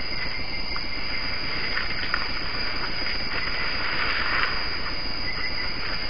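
Steady, dense high-pitched hiss of a night insect chorus in the rainforest, unbroken and even in level throughout.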